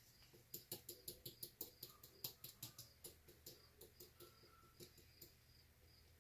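Faint quick clicks and taps, about three or four a second, of a small stick dabbing at a pull chain lying in puddles of thinned acrylic paint to coat it. The tapping thins out and stops about five seconds in.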